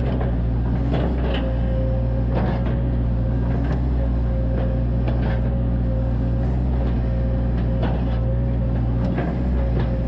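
Volvo EC140DL hydraulic excavator's diesel engine running steadily under load while the bucket digs, with a steady whine over it. Scattered short knocks and scrapes come from the bucket working the soil.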